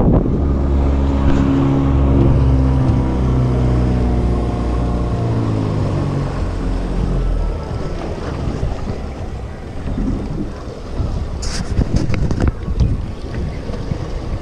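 Boat engine running steadily over wind noise on the microphone, then dropping in pitch and fading out about halfway through as the boat slows. A few sharp knocks sound near the end.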